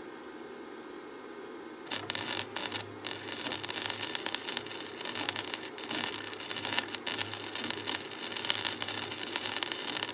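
Electric arc welder: a low steady hum, then about two seconds in the arc strikes and crackles and sizzles continuously over a low buzz, broken off briefly a few times.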